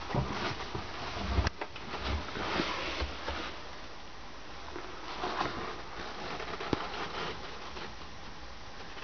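Rustling, soft low thumps and a few sharp clicks as someone moves about a small yacht cabin, busiest in the first few seconds, then a quieter steady hiss.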